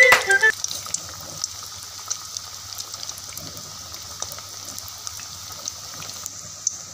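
Egg vadas deep-frying in hot oil: a steady sizzle with small scattered crackles. A snatch of music cuts off about half a second in.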